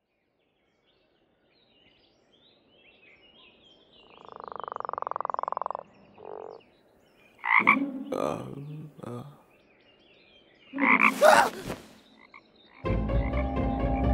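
Frogs croaking: faint chirps, then a rapid pulsed trill that swells, then several loud single croaks. Near the end a loud, dense chorus of sound sets in.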